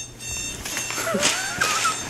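Electronic alarm clock beep cutting off just after the start, then a pet's high, wavering whine that rises in pitch about a second in.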